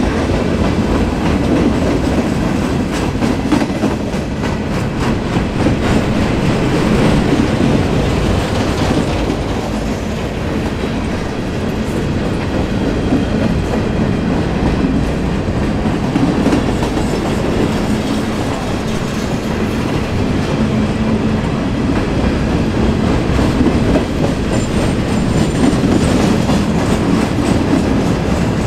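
Freight train's gondola cars rolling past, a steady loud rumble of steel wheels on rail with a running clickety-clack over the rail joints.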